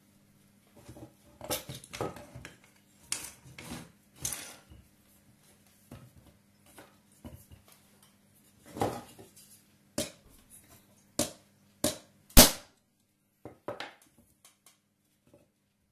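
Irregular metallic clinks and knocks of a steel rod worked against the brass body of a water meter while prying at its insert, with one sharper knock about three quarters of the way through.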